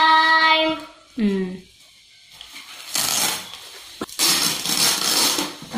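A high voice holds one long call, then gives a shorter falling one. After that come dry rustling and crackling from coconut palm leaflets handled during weaving, with one sharp click about four seconds in.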